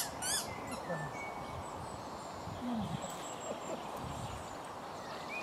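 A golden retriever and a cockapoo play-fighting, with a few short low growls over a steady outdoor hiss. A couple of sharp high chirping calls come right at the start, and faint bird chirps come near the end.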